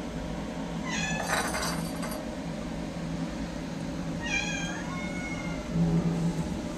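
Cat meowing twice, two high meows about three seconds apart, the second sliding slightly down in pitch, over a steady low hum.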